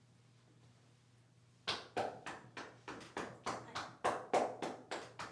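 Hands slapping rhythmically on the body in percussive massage (tapotement), about three strikes a second, starting a little under two seconds in.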